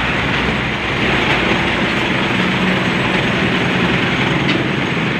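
Motor vehicle on the move: a steady low engine hum under constant road and wind noise.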